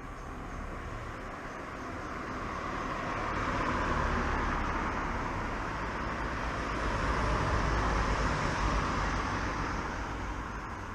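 Road traffic: motor vehicles passing, their tyre and engine noise swelling and fading twice, with peaks about four seconds apart.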